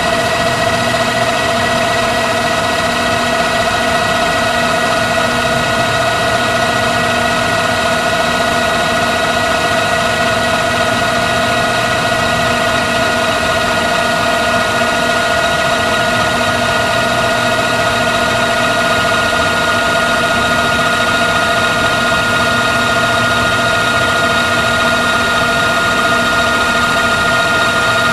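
LG V194H DVD/VCR combo's tape transport fast-winding a T-120 VHS cassette from reel to reel. It makes a steady mechanical whine of several tones over a whirring hiss, with the upper tones drifting slightly in pitch towards the end.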